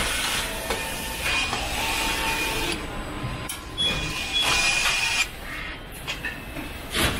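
Assembly-line noise with an electric nutrunner running in short bursts with a high whine as it tightens front suspension bolts. A sharp knock comes near the end.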